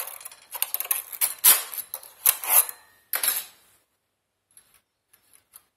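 Steel latch needles of a single-bed hand flat knitting machine clattering as a hand pushes them forward along the needle bed. The rattling comes in about four sweeps over the first three and a half seconds, followed by a few faint ticks.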